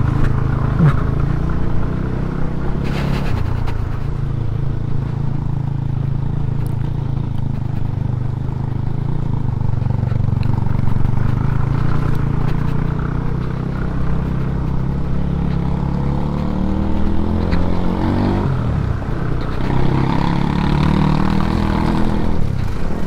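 Scooter engine running under way over a loose, stony gravel track, with the tyres crunching and rattling over the stones. The engine note climbs a few times about three-quarters of the way through as the throttle opens.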